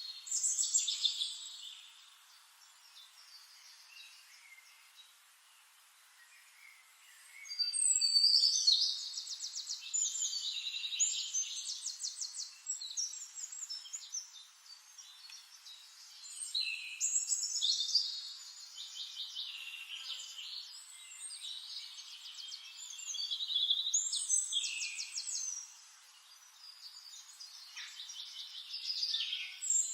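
Songbirds singing: repeated phrases of high, rapid trills and chirps, with a lull of about five seconds near the start.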